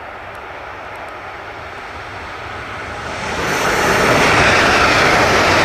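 Battery-powered toy train running along its track: a steady rushing, rattling noise that swells over the first few seconds and then holds loud.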